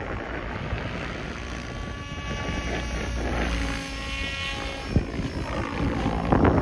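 Protos 770X Evo electric RC helicopter in flight, its rotors and motor whining with the pitch shifting as it manoeuvres. Gusts of wind hit the microphone.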